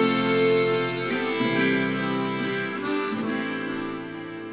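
Harmonica playing long held notes over acoustic guitar in an instrumental passage of a song, loudest at the start and fading gradually.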